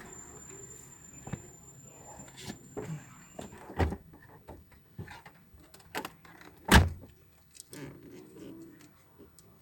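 Scattered clicks and knocks of tools and parts being handled during car-stereo wiring work, the loudest about seven seconds in. A faint, high, steady tone is heard over the first three and a half seconds.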